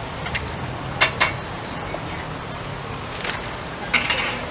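Hotteok sizzling in oil on a flat steel griddle, with sharp metal clacks of the cooking tools on the griddle: two close together about a second in and a few more near the end.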